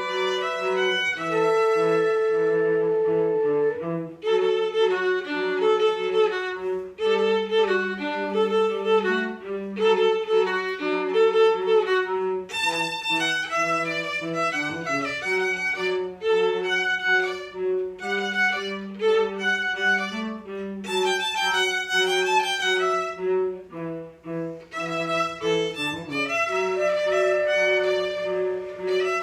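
Instrumental string music: a violin melody moving over held lower notes from a cello.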